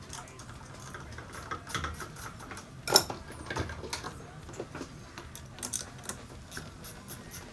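Scattered light metallic clicks and taps of a hand tool working on the battery terminals, loosening the negative battery cable clamps, with one sharper knock about three seconds in.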